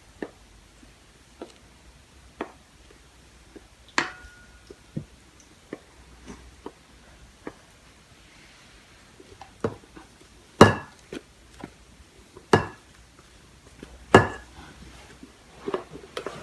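Scattered clicks and knocks of kitchen utensils against a mixing bowl and metal cake pans as cake batter is shared between two pans. Three louder knocks that ring briefly come about two seconds apart in the second half.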